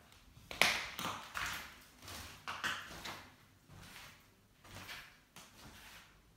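Footsteps scuffing across a littered wooden floor, an uneven string of short steps about two a second, loudest about half a second in.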